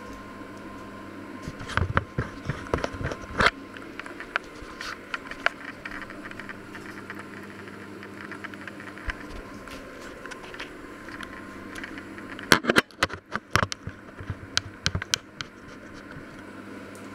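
Handheld camera being picked up and set down again: two clusters of knocks and scrapes, about two seconds in and again about twelve seconds in, over a steady hum.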